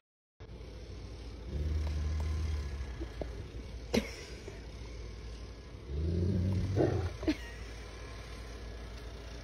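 Two low, rumbling growls, each about a second long, with a sharp click between them.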